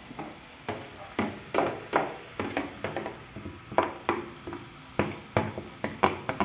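Metal spoon knocking and scraping against a plate and the rim of a cooking pot as grated carrot is pushed off the plate into the pot. It makes sharp, irregular clinks, about two to three a second.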